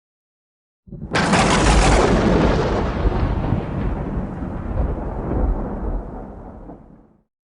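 Thunder sound effect: a sudden loud crack about a second in, then a deep rumble that fades away and cuts off abruptly near the end.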